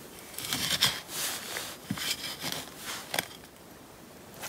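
Irregular scraping, rustling and sharp knocks of hand work on earth and wood, such as digging and setting steps into a slope. The sounds stop about three and a half seconds in.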